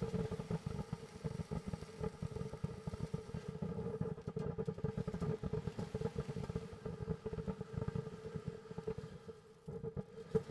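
Warrior ground fountain firework burning with a continuous rapid sputtering rush, a steady tone running underneath. It falters briefly near the end, then picks up again.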